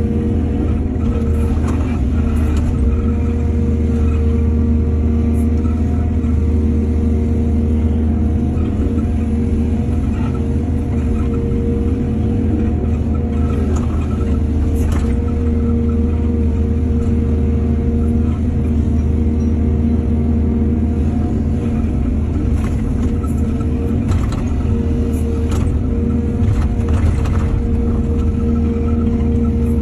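Heavy diesel engine of an excavator loading soil, running steadily with a strong low hum, broken by scattered short clanks and knocks.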